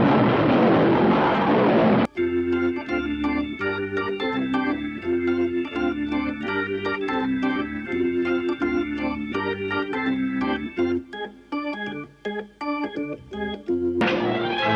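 Orchestral music for about two seconds, then an abrupt cut to organ music: a repeating tune over a regular, pulsing bass line.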